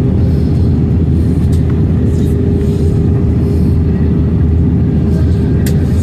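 Steady cabin noise of an airliner in flight, heard from inside the cabin: a low rumble of engines and airflow with a steady hum running through it. A single short click near the end.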